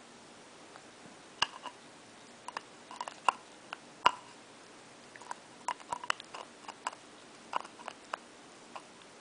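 Cavalier King Charles Spaniel puppy chewing on a pink toy: irregular small clicks and snaps of teeth working the toy, a few sharper ones about 1.5, 3 and 4 seconds in.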